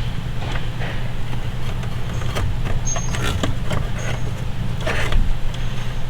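Hand work on car engine parts: scattered clicks, taps and knocks of tools and parts being handled, over a steady low hum.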